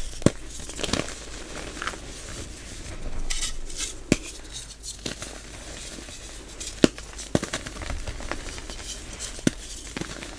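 Gym chalk blocks and soft reformed chalk pieces crushed in the hands: a dry crumbling and crackling, with several sharp snaps as pieces break apart.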